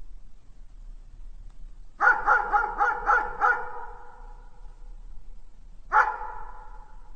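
A dog barking: a quick run of six barks about two seconds in, then one more bark near the end, each trailing off in an echo.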